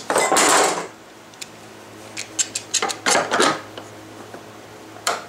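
Metal rapid action clamps clinking and clicking as they are handled and locked on a plywood router jig, with a few louder rustling handling noises. A steady low hum runs underneath.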